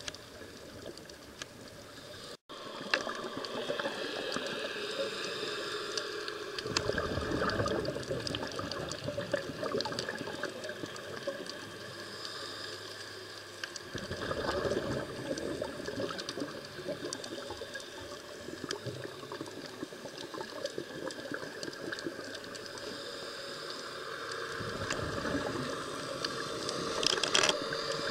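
Underwater ambience picked up by a dive camera in its housing: steady water noise, louder with a low rumble for several seconds in the middle and again near the end, broken by a brief dropout about two seconds in.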